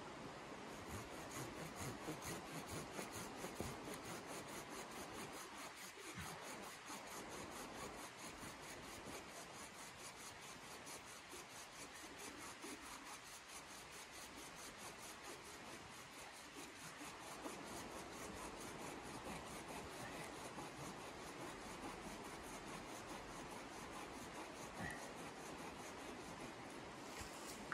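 A hand saw cutting through a log, a steady rasping of repeated strokes.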